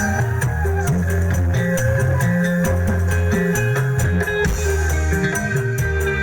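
Live dangdut koplo band music: bass, guitar and percussion playing with a steady beat.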